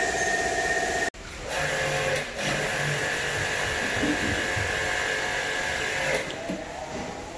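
Steady machine whine from a running motor, broken by an abrupt cut about a second in, after which a similar steady whine carries on and eases near the end.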